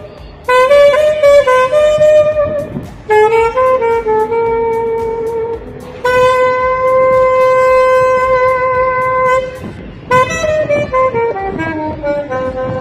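Solo saxophone playing a slow melody in short phrases with brief breaths between them. It holds one long steady note for about three seconds midway, then plays a falling run and settles on another held note near the end.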